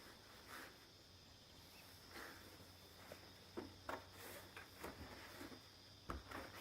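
Quiet background with a faint steady high-pitched hum and a handful of light taps or clicks in the second half.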